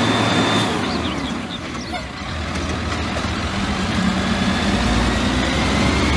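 Diesel engine of an automated side-loader garbage truck running at a standstill, a steady low rumble that grows stronger in the second half.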